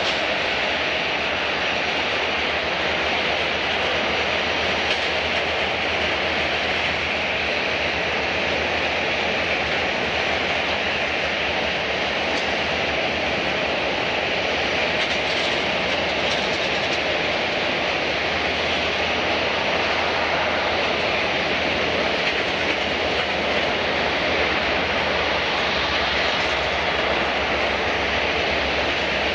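Jet airliner engines running, a constant loud rushing noise that holds steady without rising or falling.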